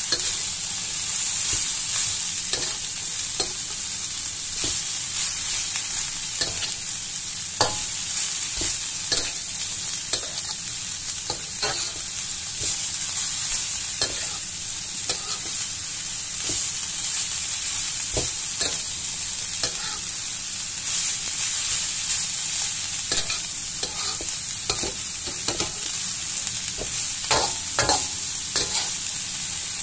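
Shredded carrots and sliced green beans sizzling in oil in a wok while being sautéed until half cooked, stirred with a spatula that scrapes and clicks against the pan at irregular intervals.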